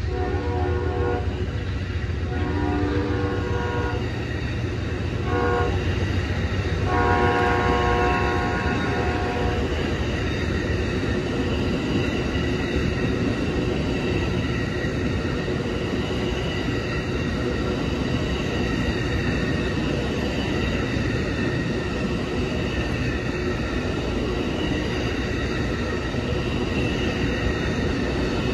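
A passenger train made up of bilevel coaches, followed by enclosed auto-rack cars, which makes it an Amtrak Auto Train, rolls past with a steady rumble of wheels on rail. A train horn sounds several times during the first ten seconds; the last blast is the loudest and longest, starting about seven seconds in.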